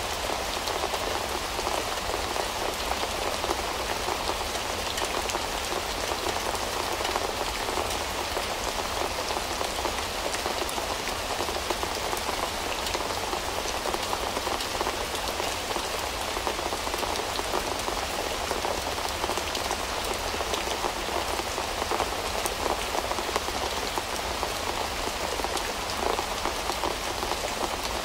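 Steady rain falling on a window: an even wash of rain with countless small drops ticking against the glass.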